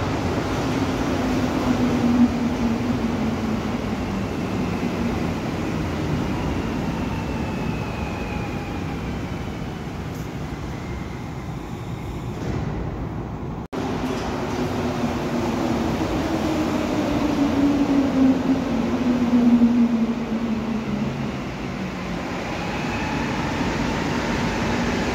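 Rubber-tyred Montreal Metro trains in an underground station: a train's whine falls slowly in pitch over a steady rumble as it slows into the platform. After a break, a second long falling whine follows, and a rising tone starts near the end.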